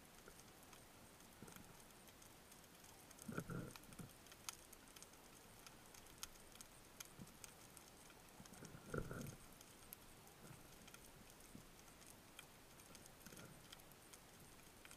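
Near silence underwater: faint, scattered ticks and crackles, with two brief, muffled low swishes about three and a half and nine seconds in.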